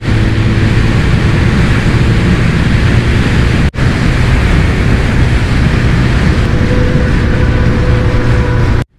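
Motorcycle running at highway speed: a steady low engine drone under heavy wind rush on the microphone. The sound drops out for a moment about a third of the way in and cuts off just before the end.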